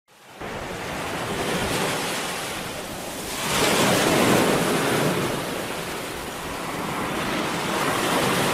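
Sea surf washing onto a beach, fading in at the start, swelling about three and a half seconds in and building again near the end.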